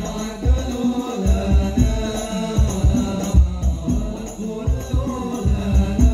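Hadrah ensemble playing: men singing an Islamic devotional chant together through a PA, over a driving beat of frame drums with jingles.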